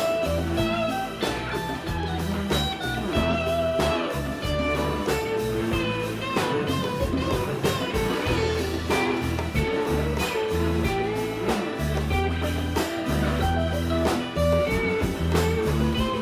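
Band playing an instrumental break of a blues-rock song: a lead guitar plays bending melodic lines over bass and drums.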